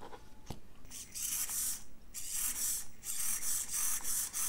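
Hobby servo (TowerPro SG-5010) whirring in a run of short bursts with brief gaps, moving back and forth as a hand's shadow changes the resistance of the photoresistor in its 555-timer PWM control circuit. A sharp click comes about half a second in.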